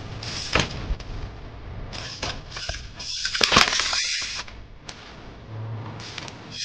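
Trials bike tyres and frame knocking as the bike hops and lands on brick and timber: a few sharp knocks, then a louder scraping burst with sharp clicks about three to four seconds in.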